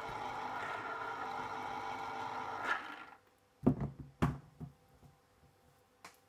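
Electric citrus juicer's motor running steadily while an orange half is pressed onto the spinning reamer, cutting off about three seconds in. Then two sharp knocks and a few lighter clicks.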